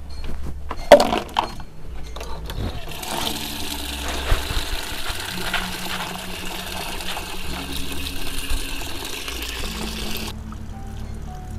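Water running from a pipe into a concrete basin and splashing, starting about three seconds in and cutting off near the end, with a sharp knock about a second in.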